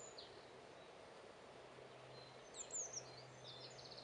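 Quiet outdoor background with faint bird chirps: a few short, high, descending notes about two and a half seconds in and again near the end.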